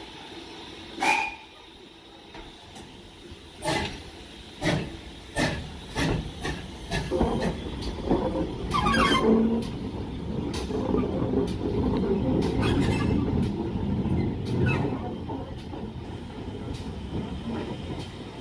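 GWR 5700-class pannier tank steam locomotive moving off: a brief sharp sound about a second in, then exhaust chuffs that start slow and quicken as it gathers speed, a longer blast of steam about nine seconds in, and the steady rumble of the engine and coaches running past.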